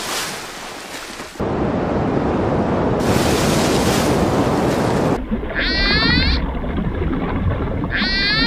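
Rushing, splashing water, then two killer whale calls about two seconds apart, each a short squeal that falls in pitch.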